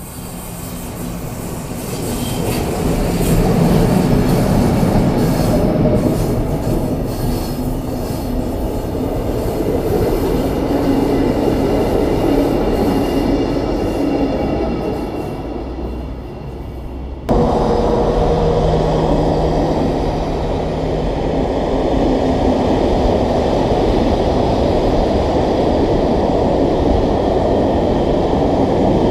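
Electric train running on the rails: the wheel-and-rail rumble rises to a peak a few seconds in, then slowly fades. About 17 seconds in there is an abrupt cut to a long freight train of open wagons rolling past with a steady, loud rumble of wheels on rails.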